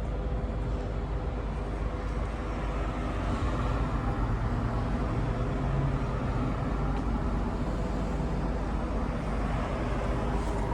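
Steady motor vehicle noise: a continuous low hum with road noise, holding an even level throughout.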